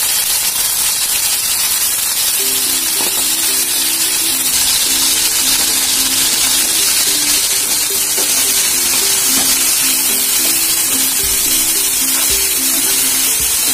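Raw chicken pieces frying in hot oil in a frying pan on high flame, a steady sizzling hiss. A simple background music tune comes in about two seconds in.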